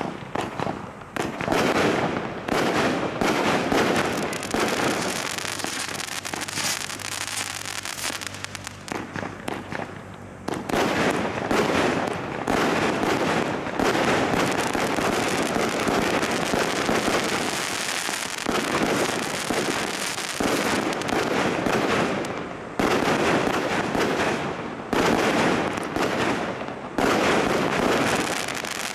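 A Screaming Spiders 100-shot 1.3G finale cake firing rapid volleys of shots, with the shells bursting and crackling overhead. It goes in dense waves with a quieter stretch about a third of the way through and short pauses between later volleys.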